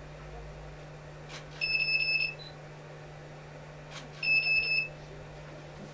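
Two electronic beeps at one steady pitch, each lasting a little over half a second and about two and a half seconds apart. Each comes just after a faint click, over a low steady hum.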